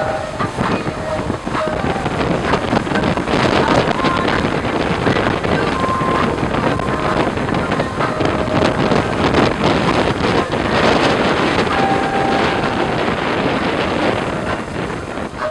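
Twin Suzuki 150 hp four-stroke outboard motors running at speed, with water rushing past the hull and heavy wind buffeting on the microphone.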